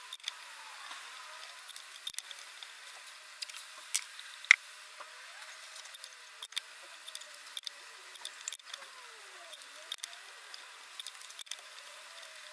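Hand-turned taps cutting threads in the holes of a metal cylinder block: scattered sharp metallic clicks and ticks, the loudest about four and a half seconds in, over faint scraping.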